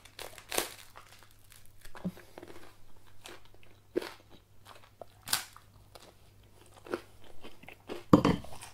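Close-up chewing of crisp toasted bread: separate crunches every second or so, the loudest near the end, over a faint steady low hum.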